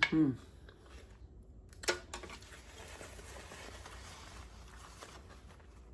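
A short knock about two seconds in, then about three seconds of faint, steady rustling from handling at the table.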